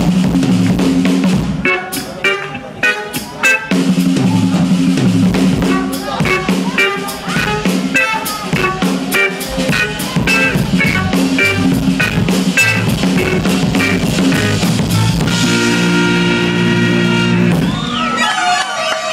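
Live drum solo on a large rock drum kit: rapid strikes and rolls across drums and cymbals over a held low note. From about fifteen seconds in the strikes thin out under a steady held chord, and near the end sliding pitched tones come in.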